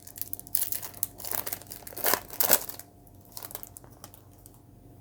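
Plastic wrapper of a baseball card pack crinkling as it is torn open and pulled apart, loudest a little after two seconds in, then a few softer rustles.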